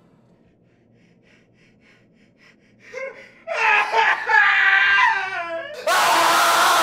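A man's anguished wailing and sobbing cries begin about three seconds in and break off into a loud, raw scream near the end.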